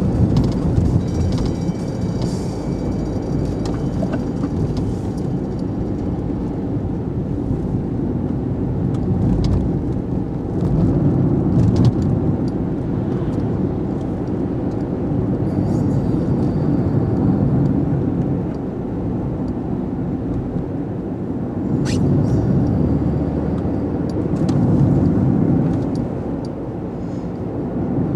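Road and engine noise heard inside a moving car's cabin: a steady low rumble that swells and eases a few times, with a few light clicks.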